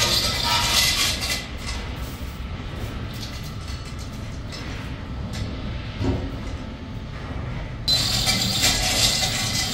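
Steady workshop machinery rumble with scattered clicks and clinks. It grows suddenly louder and brighter about eight seconds in.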